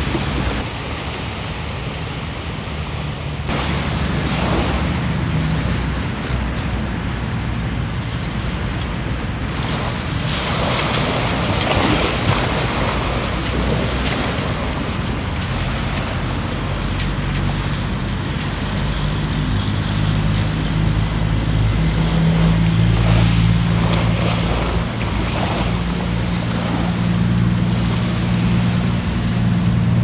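A steady low engine drone, with wind and surf noise washing over it; the drone grows stronger over the last third.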